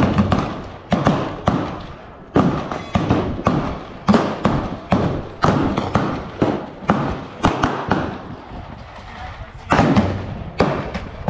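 Gunfire from several shooters on a covered firing line: sharp, irregular, overlapping shots at about two a second, each with a short echo.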